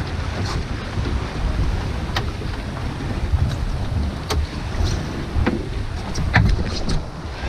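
Wind buffeting the microphone over water rushing and splashing along the hull of a small Pelican sailing dinghy under way, with a few sharp ticks scattered through.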